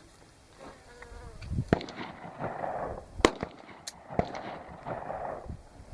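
Several rifle shots at irregular intervals, sharp cracks with the loudest about halfway through.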